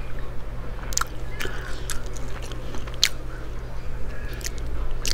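Close-miked chewing and wet mouth sounds of eating sushi, with sharp smacking clicks about a second in, around three seconds and at the end. A steady low hum runs underneath.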